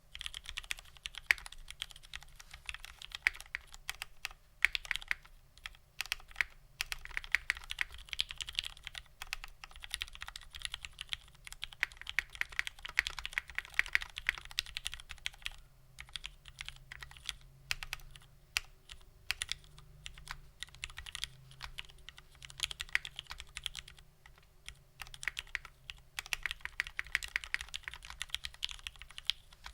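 Continuous fast typing on a custom 60% mechanical keyboard with lubed Cherry Vintage Black linear switches on an aluminium plate under GMK keycaps, the keystrokes bottoming out in quick runs with brief pauses twice.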